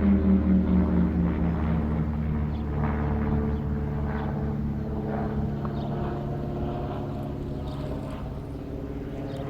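Hörmann ECI-DT 1200 electronic siren winding down at the end of its fire alarm signal: its tone glides slowly downward in pitch, then holds low while fading, over a low steady rumble.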